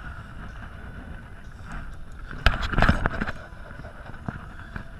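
Steady wind and sea noise on the microphone aboard a small boat, with a short cluster of sharp knocks about two and a half seconds in.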